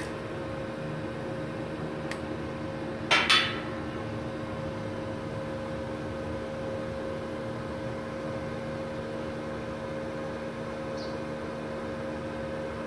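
Small inverter MIG welder idling between welds, humming steadily with its cooling fan running. About three seconds in comes a brief, loud double crackle.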